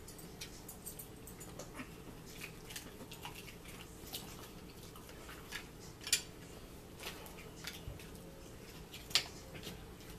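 Eating sounds at a table: chewing and small clicks of cutlery and dishes, irregular and fairly quiet, with two sharper clicks about six and nine seconds in.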